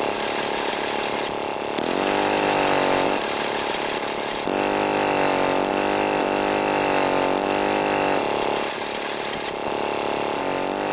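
Small motor of a miniature construction vehicle running steadily, its pitch sagging and rising again in stretches as the load changes.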